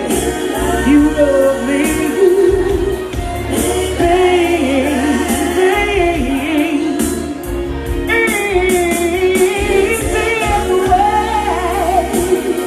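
Live band music with a melodic lead voice, over a steady bass line and cymbal ticks.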